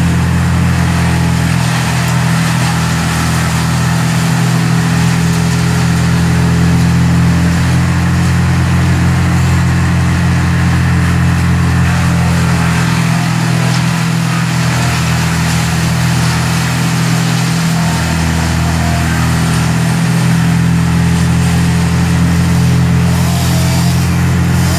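A large engine running steadily at a constant speed, a deep even hum with no revving up or down, typical of tree-removal machinery.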